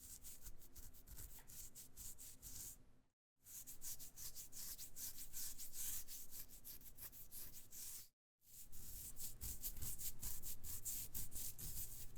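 Fingernails scratching skin in quick, rapid strokes, in three bursts separated by short silent gaps.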